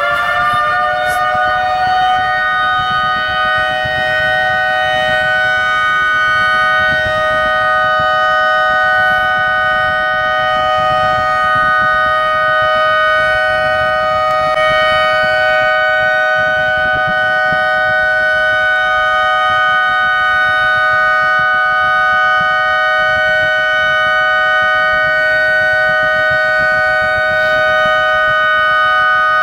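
Demolition warning siren held at full pitch in one long steady wail, several tones sounding together as a chord. It is the pre-blast warning before the building is brought down.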